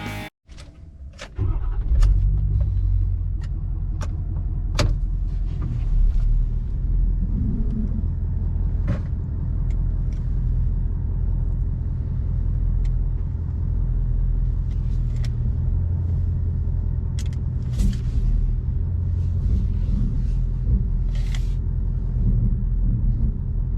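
Steady low rumble of a pickup truck's engine idling, starting about a second and a half in, with scattered sharp clicks and knocks over it.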